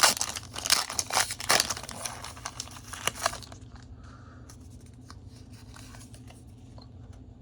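Foil Pokémon booster pack wrapper being crinkled and torn open, a dense crackling rustle that dies down about halfway through.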